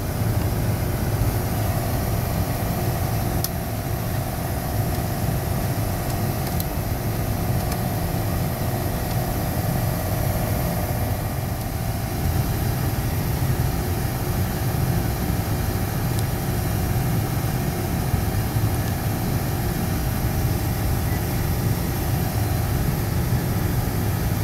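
Steady low drone of HVAC machinery running in a mechanical room, with a couple of faint clicks from hand tools.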